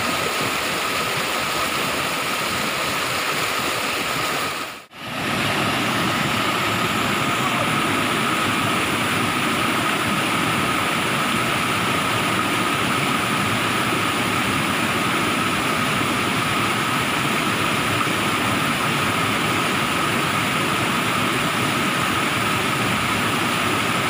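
Steady rushing of a small waterfall pouring over rocks into a stream pool. The sound drops out for a moment about five seconds in, then the water noise carries on unchanged.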